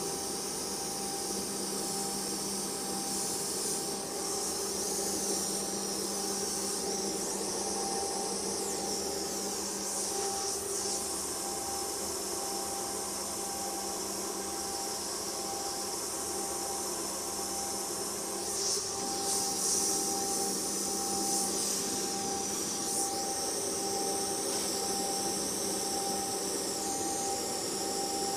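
Air blower hissing steadily as it dries a freshly sprayed water-based basecoat ahead of clear coat, the hiss shifting slightly in pitch now and then, over a steady low hum.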